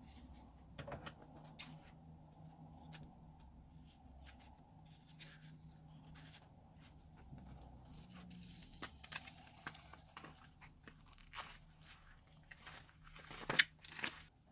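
Slime being handled and mixed by gloved hands: a run of small, irregular crackles, squelches and scrapes, with one sharper, louder crackle near the end.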